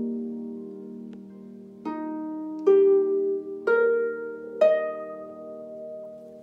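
Concert harp: a chord dies away, then four single plucked notes climb one after another, each left to ring, and the last rings on as the piece ends.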